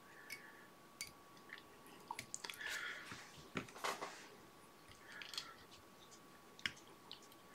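Faint scattered clicks and soft, brief rustles of hands handling thread, materials and tools at a fly-tying vise.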